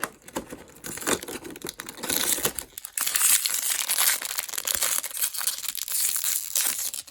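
A small pink blind-bag wrapper being torn open and crinkled by hand: scattered crackles at first, then a dense, loud crackling from about two seconds in that stops near the end.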